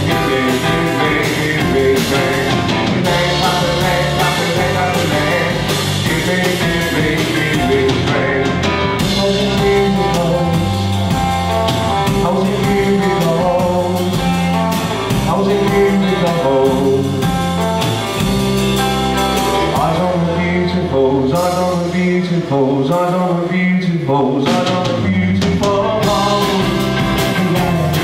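Live rock band playing a song: a man singing lead over electric guitar, electric bass guitar and a drum kit.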